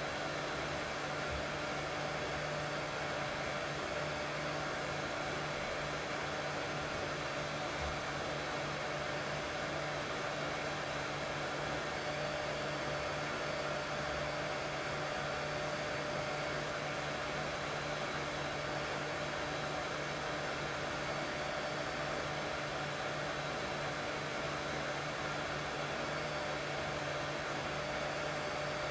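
Steady white noise with a constant motor-like hum under it, played to lull a colicky baby to sleep.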